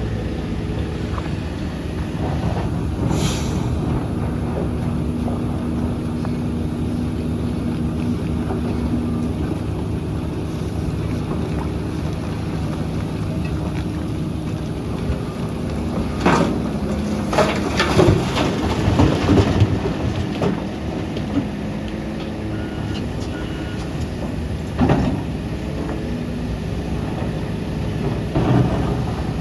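Heavy diesel engine running steadily at a constant pitch. Several loud clanks and thuds come about halfway through, one more comes later, and a few come near the end.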